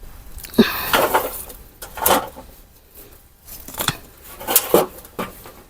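A series of irregular scrapes, rustles and knocks from peanut plants being dug and pulled out of hard garden soil by hand.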